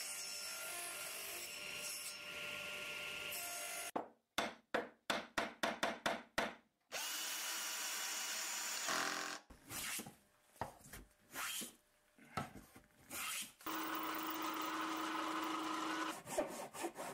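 Woodworking sounds cut together: a power tool running steadily, then quick strokes of a saw in wood, another stretch of machine running, irregular knocking and rubbing, a machine with a steady hum, and rapid sawing strokes again near the end.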